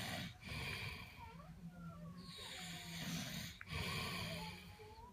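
A man snoring in his sleep: long rough, rattling snores, broken by short pauses about half a second in and again about three and a half seconds in.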